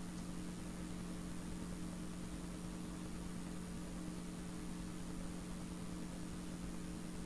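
Steady low hum with an even hiss, a background noise floor with no distinct sound event.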